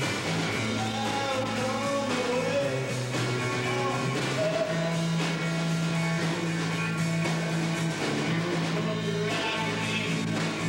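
Live rock band playing: electric guitars and a drum kit, with a man singing a wavering melody over them.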